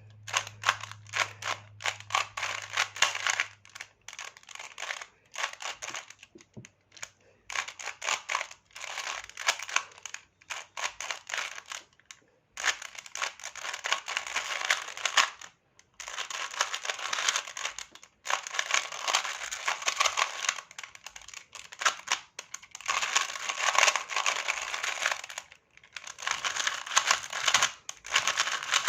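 Rubik's brand 3x3 cube being turned during a solve: dense runs of plastic clacking and scraping from the layers, in spurts of a few seconds with short pauses between. The turning is loud and the cube is tight, with no corner cutting.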